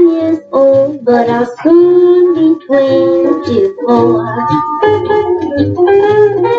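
Music playing from a 1948 78 RPM shellac record on a turntable: a jazzy pop song with a melodic line over a steady bass.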